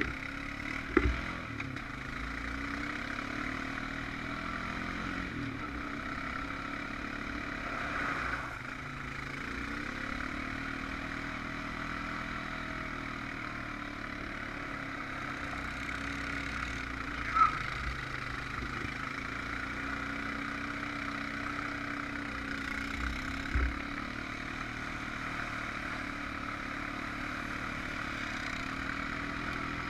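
Honda Rancher 420 ATV's single-cylinder four-stroke engine running while mudding, its pitch rising and falling as the throttle is worked, with a few brief louder knocks.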